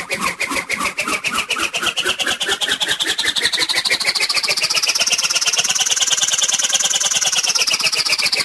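Cartoon whoosh sound effect: a rapid, motor-like fluttering whir whose pitch climbs slowly to a peak about six to seven seconds in, then falls away.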